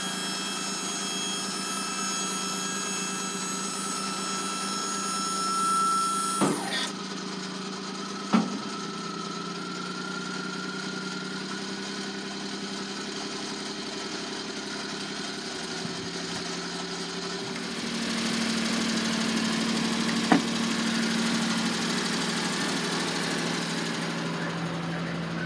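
Suzuki Carry dump truck's F6A three-cylinder engine running with the hydraulic tipper pump engaged, raising the dump bed, with a steady high whine over the engine. Two sharp clunks come about six and eight seconds in, and a click near the end.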